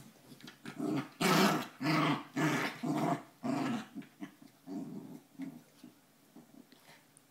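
Two small dogs, one a West Highland white terrier, play-fighting with growling: a run of loud growls, about two a second, from about a second in, turning into quieter, shorter growls that die away near the end.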